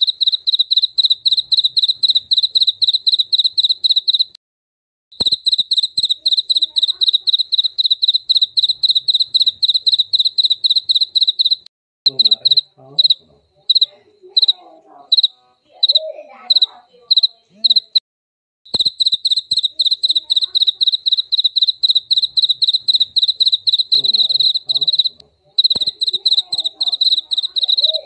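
Jaliteng field cricket chirping loudly, a high trill made of fast pulses. About halfway through the song breaks into separate chirps about two a second, then resumes as a steady trill, and it cuts out briefly three times.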